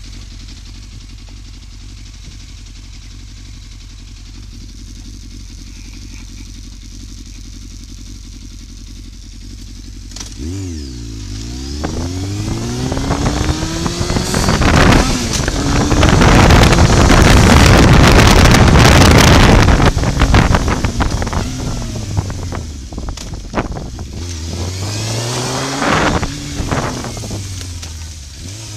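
Motorcycle engine running steadily and low for about ten seconds, then revving hard and pulling away, its pitch rising and falling through the gear changes. At speed, loud wind rush on the bike-mounted microphone covers it. Near the end the engine slows and revs up again.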